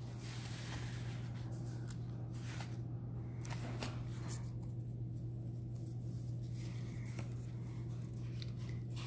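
Glossy paper pages of a book being turned and handled, a few faint rustles and page flicks over a steady low hum.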